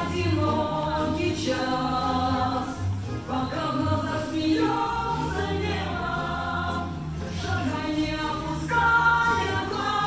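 Music: a choir singing held notes, with steady low notes underneath.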